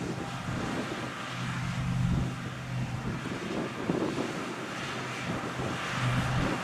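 Fendt 6275 L combine harvester running steadily, its low engine hum swelling and fading, with wind noise on the microphone.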